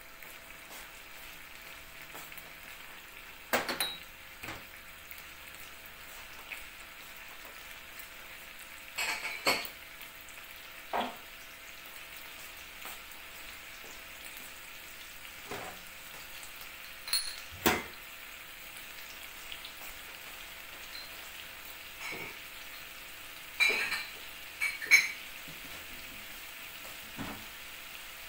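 Shrimp frying in a nonstick pan: a steady low sizzle, with a dozen or so sharp clicks and pops scattered through it.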